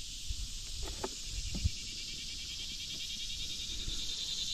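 Insects buzzing steadily: a high, fast-pulsing chorus that grows a little louder near the end, with a couple of faint soft knocks in the first two seconds.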